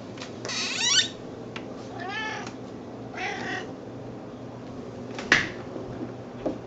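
Snowshoe cat making three short, wavering, baby-like meows, the first the loudest, begging to be fed. A sharp click follows near the end.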